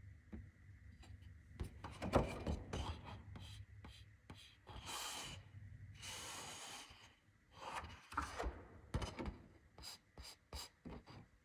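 A sheet of plastic shrink film handled and flexed by hand: scattered crackles and taps, with two longer rustling rubs about five and six seconds in.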